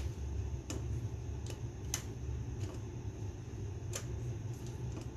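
Scattered light clicks and taps from hands and tools working on an ATV carburetor during refitting, over a steady low hum.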